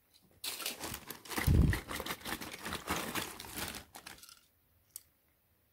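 Plastic bag rustling and crinkling as hands rummage in it, stopping about four seconds in, with a dull thump about a second and a half in. A single small click follows near the end.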